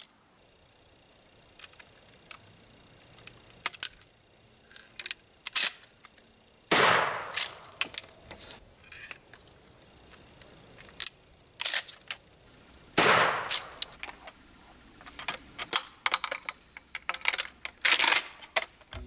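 Remington 870 12-gauge pump shotgun being loaded by hand: a run of separate sharp clicks and clacks as shells are pushed into the magazine and the gun is handled, with two longer, louder clatters about seven and thirteen seconds in.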